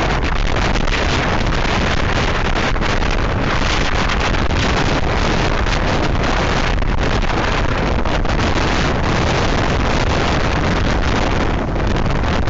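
Hurricane Irene's wind blasting across the microphone: a loud, unbroken rushing with a heavy rumble low down that covers everything else.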